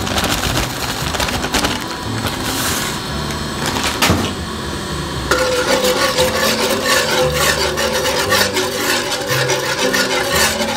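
Metal wire whisk stirring water in a nonstick frying pan, its wires scraping and clicking against the pan, busier and louder from about halfway through, with background music throughout.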